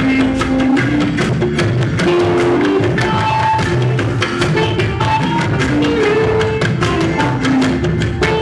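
Lively music: held melody notes over a busy beat of drums and hand percussion.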